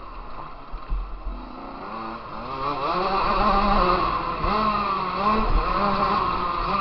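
KTM motocross bike engine heard from onboard, its revs climbing and dropping again and again as the throttle is worked around the supercross track. It grows louder about two and a half seconds in, with a few low thuds.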